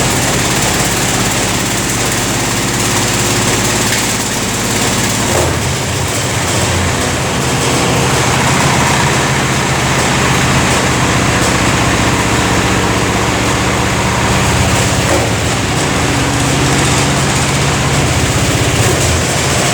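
Samsung washing machine spinning wet towels at high speed (1400 RPM): a loud, steady motor hum and whine over the rush of the spinning drum, its low rumble changing about five seconds in.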